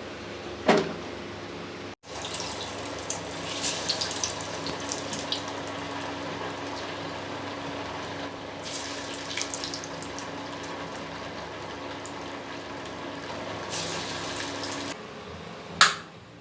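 Vadai deep-frying in hot oil: a steady sizzle with scattered crackles, with a sharp knock near the start and another near the end.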